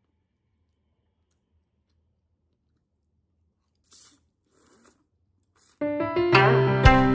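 Near silence, broken by a few short slurping sounds of noodles being eaten about four and five seconds in; then piano-like keyboard music starts near the end and is the loudest sound.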